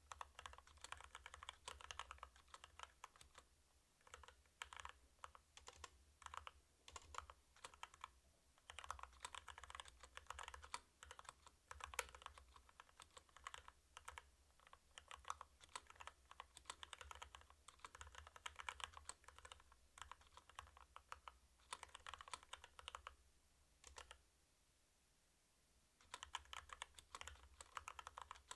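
Typing on a 65% mechanical keyboard with linear Kailh Box Red switches: fast runs of keystroke clacks broken by brief pauses, with a gap of about two seconds near the end.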